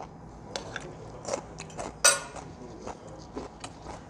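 Metal fork scraping and clinking against a metal pan while scooping fried rice, a run of small clicks with one sharp, ringing clink about two seconds in.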